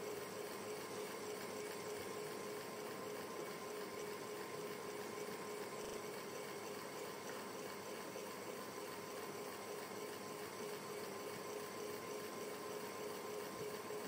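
Ceiling fan running: a soft, continuous rush of air with a steady low hum that does not change.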